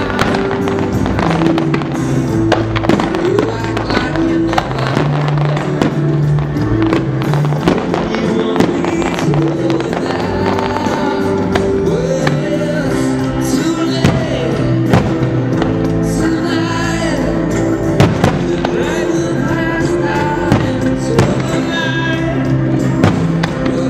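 Music soundtrack of a fireworks display playing loudly, with aerial firework shells bursting over it in repeated sharp bangs and pops; one of the loudest bangs comes about eighteen seconds in.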